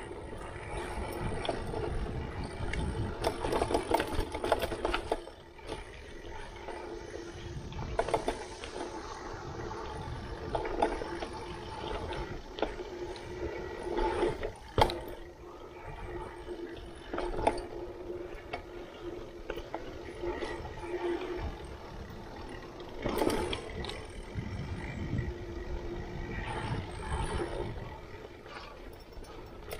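Mountain bike riding down a dirt singletrack: steady tyre noise on the dirt and the rattle of the bike over roots and bumps. A few sharp knocks come through, the loudest about fifteen seconds in.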